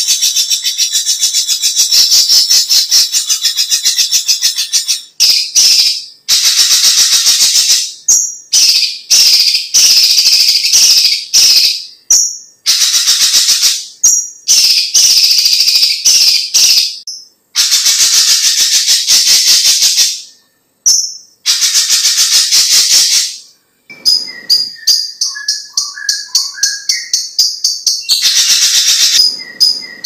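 Cucak ijo (leafbird) singing: fast, high-pitched rattling trills in bursts of one to two seconds with short breaks. Near the end comes a run of quick ticking notes mixed with lower whistled notes, then another dense trill.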